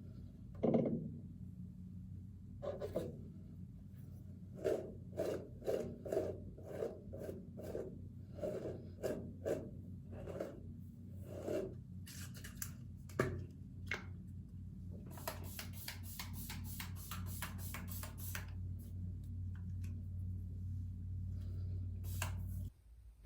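Repeated rubbing strokes, about two a second, then a quicker run of scratchier strokes, over a low steady hum.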